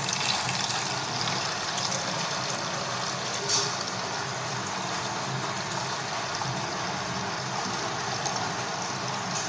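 Water pouring steadily from a tilted steel bowl into a steel pot: the clear water that has risen above settled, ground wheat milk being drained off, leaving the thick wheat milk behind.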